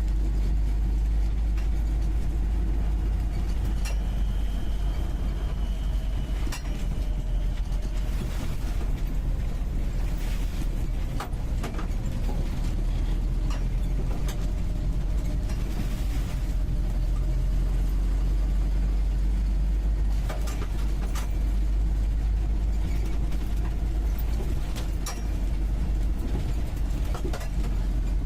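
UAZ 469B's four-cylinder petrol engine running steadily as the vehicle drives along, heard from inside the cabin, with occasional sharp knocks and rattles.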